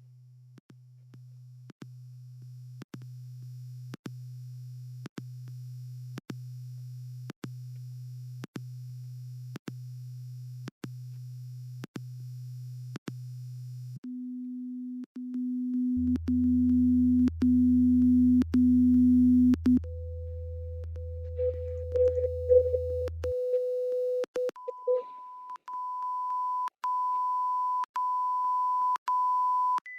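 Pure test tones of an online hearing test, played one pitch at a time and stepping up an octave at each change. A low tone broken into short repeated beeps runs for about fourteen seconds, then higher tones follow every five or six seconds, getting louder. A deep hum sounds underneath for several seconds in the middle.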